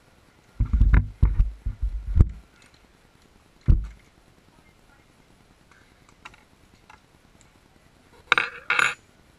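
Handling noise from hands working on an RC buggy's engine. First comes a run of dull, low thumps and knocks for about two seconds, then a single knock, and near the end two short rattles.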